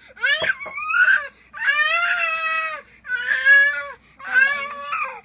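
A toddler crying hard in a run of high-pitched wails, each about a second long with short breaths between, in protest at being made to take medicine.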